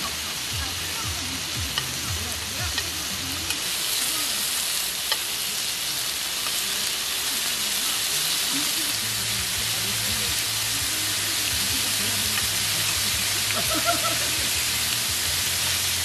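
Pork belly sizzling and frying on a hot griddle pan, with a steady hiss that gets louder about four seconds in. Metal tongs click against the pan now and then as the strips are turned.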